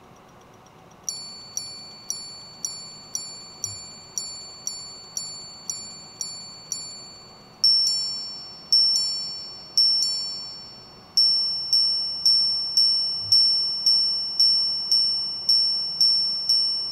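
Chopard L.U.C Full Strike Tourbillon minute repeater striking 12:59 on its monobloc sapphire gongs. It starts about a second in with twelve evenly spaced ringing hour strikes about half a second apart, then three double strikes on both hammers for the quarters, then a run of higher-pitched minute strikes that is still going at the end.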